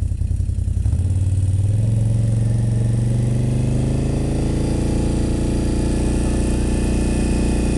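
Can-Am ATV engine picking up from idle about a second in, then running at steady higher revs as the quad pushes through deep snow.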